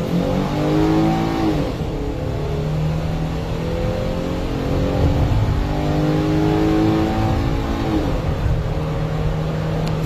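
Ford Transit V6 engine under full-throttle acceleration, its pitch climbing through the gears, with upshifts about two seconds in and again about eight seconds in.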